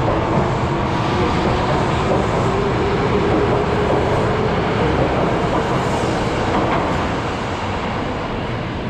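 Osaka Metro 22 series subway train running in the station: a steady rumble of wheels and running gear with a faint motor whine, easing off in loudness near the end.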